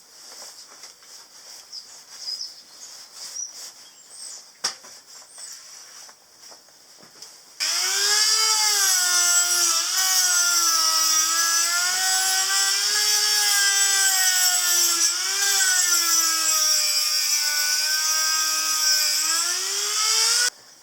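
A few light clicks and scrapes, then about eight seconds in a handheld electric power tool starts and runs for about thirteen seconds, cleaning up the removed exhaust section; its whine wavers in pitch as it is worked against the part and cuts off suddenly near the end.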